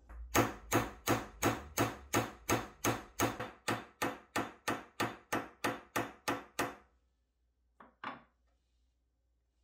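A run of about eighteen sharp strikes, evenly spaced at roughly three a second, that stops suddenly, followed by two short knocks.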